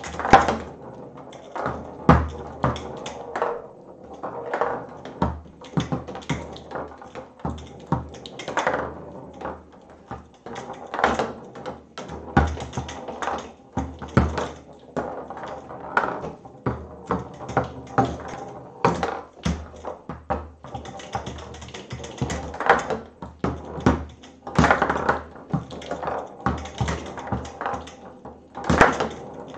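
Foosball table in play: the ball clacking off the plastic men and the table walls and rods knocking, as the ball is moved and passed between the men. Quick irregular sharp strikes, several a second, with louder knocks every second or two.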